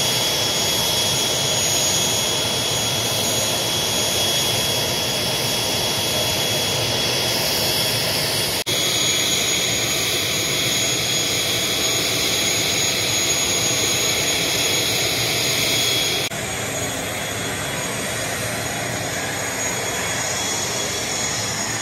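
Airliner jet engines running with a steady high whine over a loud rushing noise. The sound changes abruptly twice, about a third and three quarters of the way through.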